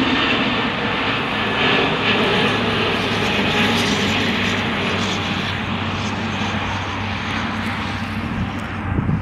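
Airbus A320neo airliner's turbofan engines at takeoff thrust as it climbs away overhead: a steady broad jet noise that slowly fades as the aircraft recedes, with the high hiss dropping away and a brief thump near the end.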